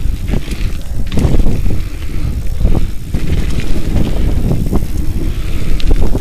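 Mountain bike riding fast down a dirt and gravel trail: wind buffeting the camera microphone over the rumble of tyres on the loose surface, with short knocks and rattles from the bike over bumps.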